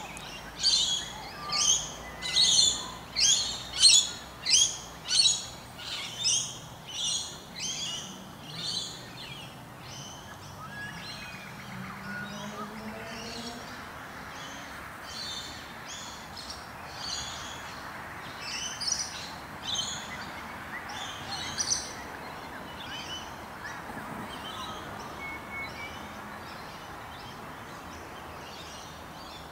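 A bird calling over and over: a run of loud, high, sharp calls, about one and a half a second, fades out after about nine seconds. A quieter run of similar calls follows from about fifteen to twenty-two seconds, over steady background noise.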